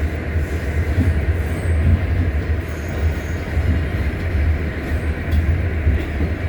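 R68 subway car running on the track, a steady heavy low rumble of wheels and running gear, with a faint short high squeal about halfway through.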